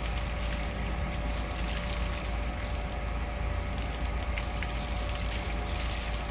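Water running steadily, as from a hose, over a steady low hum.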